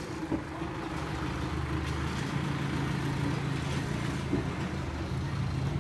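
A motor vehicle engine idling with a steady low drone.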